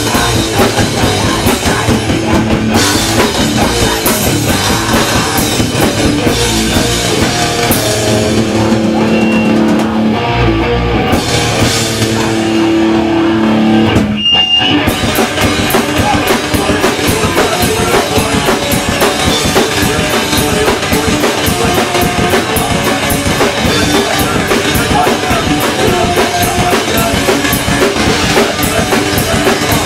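Hardcore band playing live: distorted electric guitar chords ring out over drums, then about halfway through a brief break gives way to the full band at a fast, dense beat.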